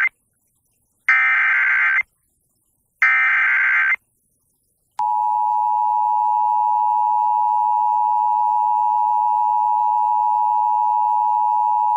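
Emergency Alert System header: the end of one burst of rapid data tones, then two more bursts of about a second each, a second apart, followed about five seconds in by the EAS two-tone attention signal, held steady. The tones announce a tornado warning.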